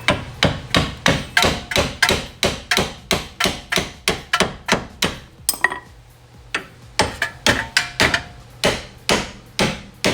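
Repeated hammer blows tapping a 2003 Saab 9-3's front lower control arm out of its mount, about three strikes a second, with a short pause past the middle before the strikes resume.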